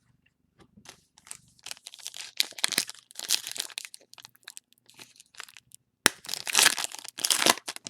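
Trading card pack wrapper crinkling and tearing as a pack is opened, a run of crackles with the loudest rips near the end.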